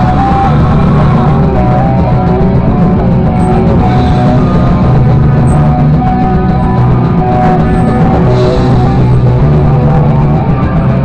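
Live rock band playing loudly, with electric guitar and drums.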